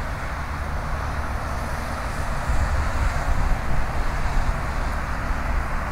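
Twin-engine wide-body jet airliner taxiing, its engines giving a steady rumble and hiss.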